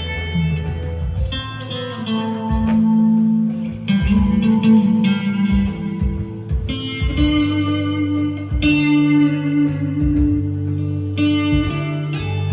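Squier Deluxe Stratocaster electric guitar on a clean tone, playing lead lines with long held notes over a backing track.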